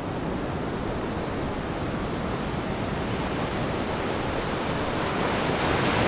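Steady rushing noise of wind and sea at an offshore cable-laying vessel, swelling slightly near the end.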